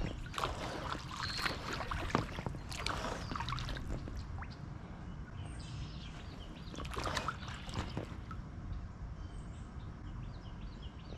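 Kayak paddle strokes dipping and splashing in the lake water: several strokes in the first three seconds and more about seven seconds in. Small birds chirp near the end.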